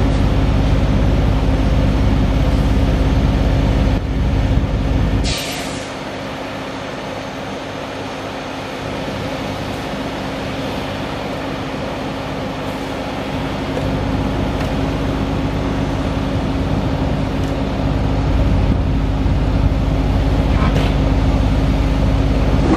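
Caterpillar 3126B diesel engine of a crane truck running under load while the telescopic crane boom is worked. A short hiss comes about five seconds in and the engine note drops after it, then builds up again later on.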